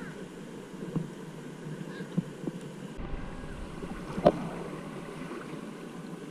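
River water lapping and gurgling right at an action camera held low at the water's surface on a floating inner tube, with a few sharp knocks, the loudest about four seconds in.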